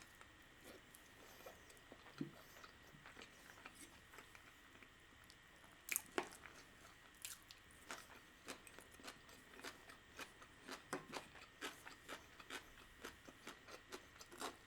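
Faint mouth sounds of a person chewing a mouthful of spicy carbonara-sauce rice risotto: soft, wet clicks. A couple of louder clicks come about six seconds in, then steady chewing clicks follow, roughly two or three a second.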